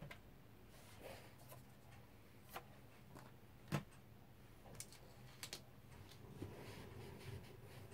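Faint, scattered plastic clicks and taps as a hand handles the Syma radio-control transmitter on the table, with one sharper knock a little under four seconds in, over a faint low hum.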